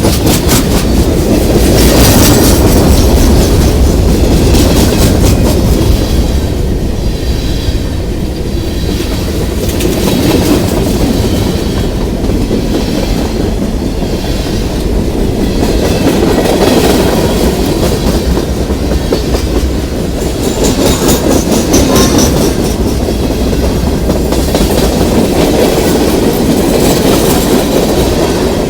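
CSX freight train cars rolling past close by: a steady rumble of steel wheels on rail, with the wheels clicking over rail joints in repeated clusters.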